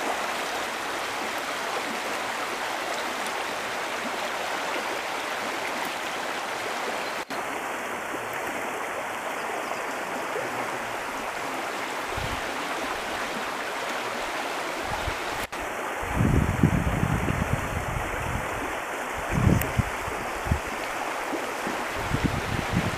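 Mountain river rushing steadily. In the second half, loud low rumbles come and go several times, and the sound cuts out for an instant twice.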